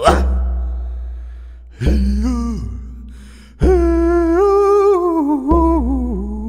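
Native American hand drum struck slowly, four deep beats about two seconds apart, each fading out before the next. A man's voice sings long wordless tones over the drum, sliding between pitches.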